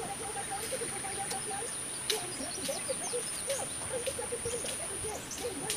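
Animal sounds: many short, chirping calls over a steady high-pitched tone, with a sharp click about two seconds in.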